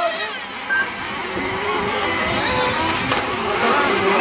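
Several 1:10-scale nitro RC touring cars racing, their small glow-fuel engines whining high and rising and falling in pitch as they accelerate and brake around the track.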